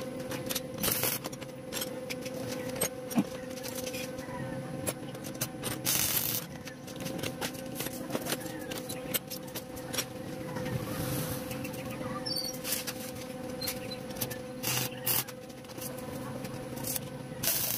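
Steel rods and hand tools clinking and scraping on a concrete floor in scattered short knocks and clicks, over a steady background hum.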